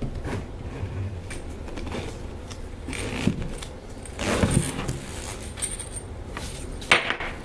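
Metal handling noises from a rusty pendant motor and its flex shaft being taken apart on a wooden table: scattered clicks, scrapes and rattles, a longer scrape about four and a half seconds in, and a sharp clack near the end.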